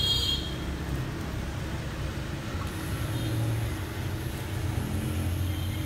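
Steady low hum of a pen-style rotary tattoo machine running as it is brought to the skin. A thin high whine joins about halfway through.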